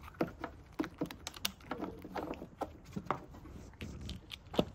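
Asian small-clawed otter crunching a boiled chestnut, cracking and peeling its shell with its teeth: irregular crisp cracks and chewing clicks, several a second, with a sharper crack near the end.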